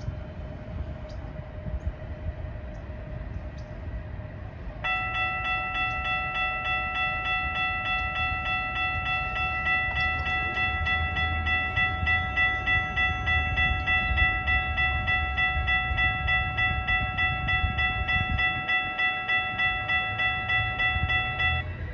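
A railroad crossing warning bell begins ringing abruptly about five seconds in, with rapid, evenly repeated dings that stop suddenly near the end. A low rumble runs underneath.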